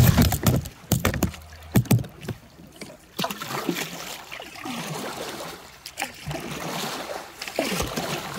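Kayak paddle splashing and water rushing through a shallow, fast current as a kayaker struggles upstream, nearly tipping over. Several heavy knocks and thumps come in the first two seconds, with another near the end.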